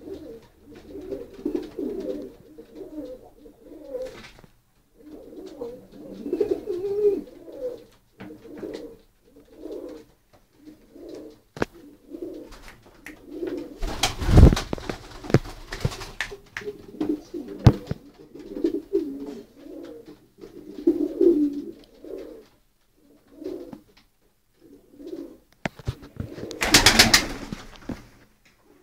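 Horseman pouter pigeons cooing over and over, low coos in short runs with brief gaps between. Two louder rushing noises break in, one about halfway through and one near the end.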